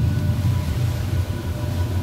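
Passenger lift car running: a steady low rumble with a faint high whine over it.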